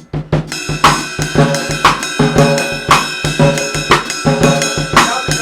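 Ellis drum kit with Zildjian cymbals played in a steady, busy groove: rapid bass drum strokes under ringing cymbals, with a harder snare or cymbal accent about once a second. Different limbs play different patterns at once, a rhythmic independence exercise.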